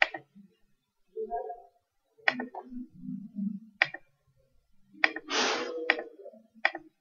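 A computer mouse clicking, about seven sharp clicks spread unevenly, with faint low mumbling sounds between them and a short hiss a little after five seconds in.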